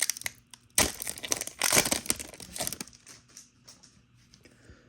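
Foil wrapper of a trading-card pack crinkling and tearing as it is opened. The sound is loudest from about one second to three seconds in, then thins to light rustling.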